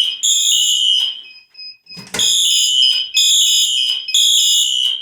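Siemens ZH-MC-R fire alarm horn sounding loudly in a temporal-3 evacuation pattern. It gives high-pitched blasts in groups of three, with a pause of about a second between the groups.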